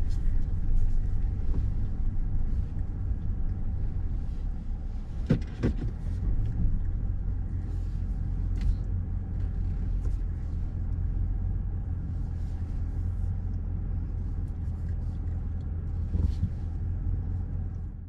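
Steady low rumble of a car driving, as heard from inside, with a few sharp clicks and knocks; the loudest is about five seconds in.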